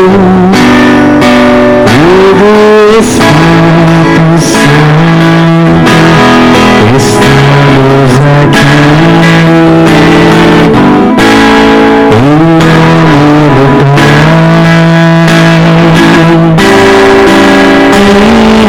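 Loud music with guitar; the melody holds long notes, several of them sliding up into pitch.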